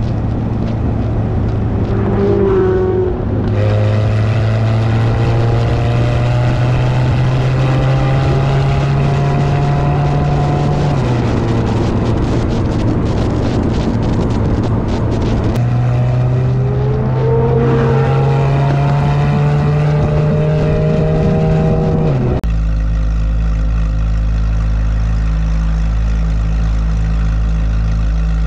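Chevrolet C8 Corvette Z06's flat-plane-crank V8 with an aftermarket exhaust, driving at low revs. Its steady exhaust note climbs slowly under light throttle and then drops back, heard in several cut-together stretches. After a cut near the end it holds a steady, unchanging note.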